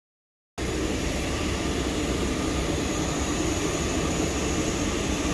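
Steady machinery drone with a low rumble in an aircraft hangar, starting about half a second in and running on unchanged.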